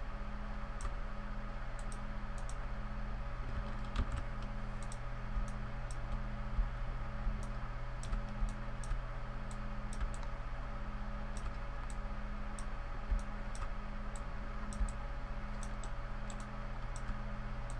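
Computer keyboard keystrokes, irregular and scattered, while working in 3D software, over a steady background hum.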